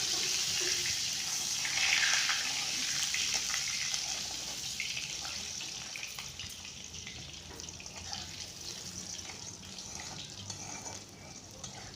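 Potato pieces and cumin seeds sizzling in hot oil. The sizzle swells about two seconds in and then slowly dies down.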